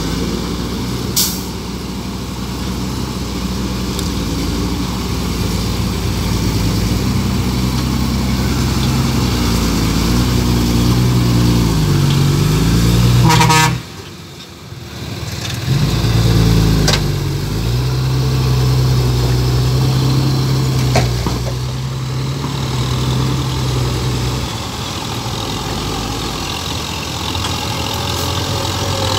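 Heavy diesel engines of a farm tractor and a dump truck running under load as the truck is worked out of soft dirt. The engine note rises and falls through the middle, then settles to a steady run.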